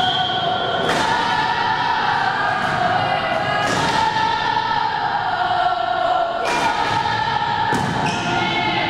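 A group of high voices chanting together in long sustained notes, with several sharp volleyball hits, about four, cutting through.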